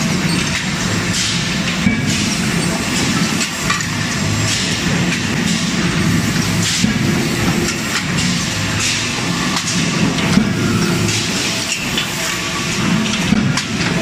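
Forging line machinery running: a steady industrial hum and din with occasional sharp metallic clanks.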